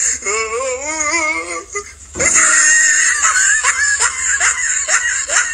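Music: a wavering, voice-like melody with heavy vibrato, then a louder, busier passage from about two seconds in.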